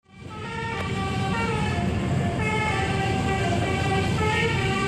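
Bus 'telolet' musical horn on a Tunggal Jaya coach playing a tune: several tones sound together and step to new notes every half second or so, over a low rumble.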